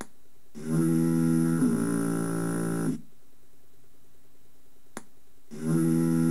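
A pitched sound effect played from a .wav file through a small speaker driven by an mbed microcontroller, repeating about every five seconds. Each playback starts with a short click, then a tone with many overtones lasting about two and a half seconds that steps down in pitch partway through, over a steady electronic hiss.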